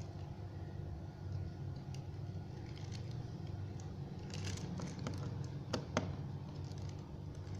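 Small clicks and taps of laptop parts being handled during disassembly, bunched about four to six seconds in with two sharp clicks, over a steady low hum.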